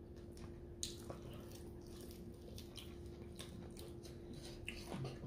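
Faint mouth sounds of eating Buffalo hot wings: scattered wet smacks and clicks of biting and chewing, with a steady low hum underneath.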